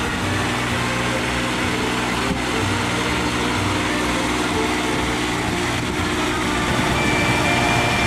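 Engine of a Maruyama self-propelled boom sprayer running steadily as the machine drives along the soybean rows spraying herbicide.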